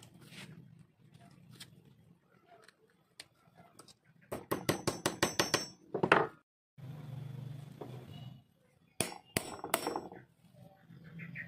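Hammer striking a metal setting tool or punch on leather laid over a steel block, with a sharp metallic ring. About ten quick taps come in under two seconds around the middle, then three or four more strikes near the end.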